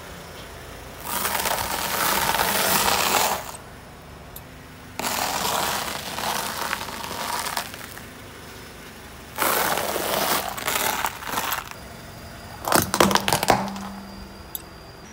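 A car tyre rolling slowly over tied bundles of stiff coloured fibres, crushing them with a crackling crunch. There are three crunching stretches of two to three seconds each, then a quick run of sharp cracks about thirteen seconds in, the loudest of all.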